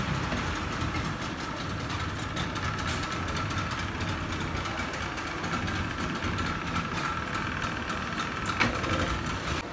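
Speedboat outboard motors idling: a steady low rumble with a faint constant whine over it. A single sharp knock comes near the end.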